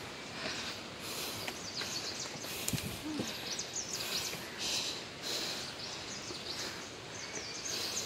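Footsteps scuffing down stone steps, with irregular rustling; a single short low hoot-like sound comes about three seconds in.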